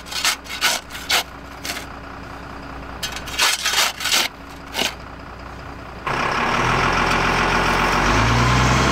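A digging bar striking into hard dirt by a bus tyre, a string of about ten sharp chops, over a faint idling engine. About six seconds in, a converted school bus's engine comes in louder and steady as the bus moves, its pitch rising a little near the end.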